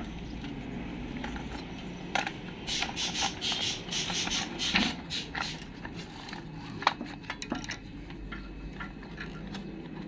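Plastic clicking, scraping and rubbing as a grass cutter's recoil starter housing is handled and pressed into place on the engine, with a cluster of scrapes and knocks a few seconds in and one sharp click about two-thirds through.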